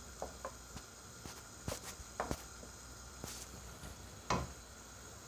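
Wooden spoon stirring minced meat and tomatoes in a non-stick wok, with scattered short scrapes and knocks against the pan, the loudest about four seconds in, over a faint steady sizzle.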